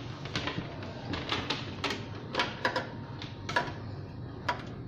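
Irregular sharp clicks and taps of cables and plug connectors being handled and fitted at the back of a phone-case printer, over a steady low hum.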